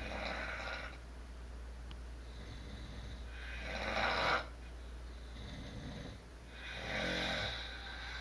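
Adults snoring in their sleep: three long snores about three seconds apart, the middle one loudest and ending abruptly, with softer, lower snores in between.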